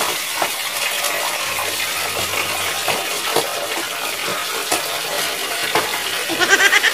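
Water running steadily from a wall pipe and splashing over a person washing and onto the wet concrete floor, with a few small knocks.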